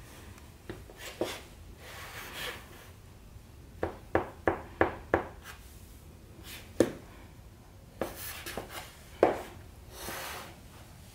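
Low-heeled flat shoes tapping and scuffing on a wooden floor: a quick run of five heel taps in the middle, with single taps and sliding scuffs before and after.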